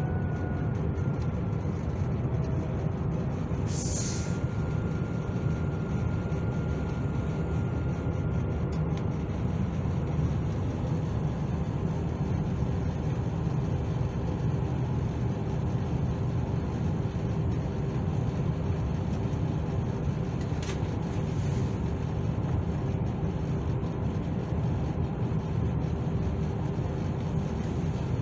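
Steady rumble of a moving passenger train heard from inside the carriage, with a faint constant hum, and a sharp click about four seconds in.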